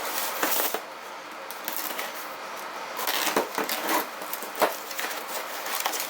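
A shipping package being opened by hand: irregular rustling of the packaging with scattered sharp clicks and taps, busier in the second half.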